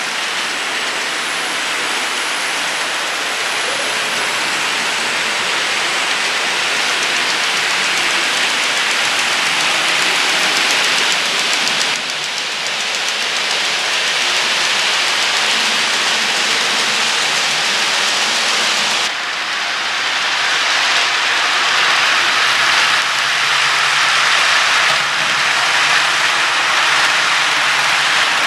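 HO scale model trains rolling along the layout's track: a steady hiss and rumble of small metal wheels on rails. The level dips briefly about 12 and 19 seconds in.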